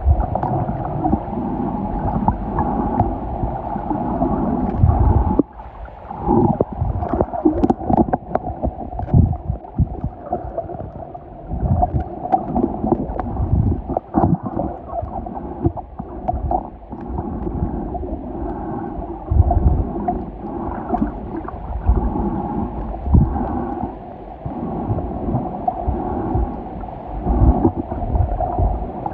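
Muffled underwater sound picked up by a submerged camera while snorkeling: water gurgling and sloshing, with frequent irregular low thumps and nothing above a dull midrange.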